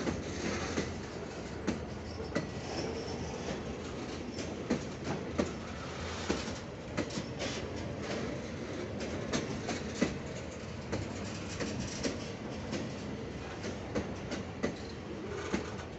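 Loaded coal hopper wagons of a long freight train rolling past: a steady rumble of steel wheels on the rails, with sharp clicks and knocks from the wheels at irregular intervals, roughly one a second.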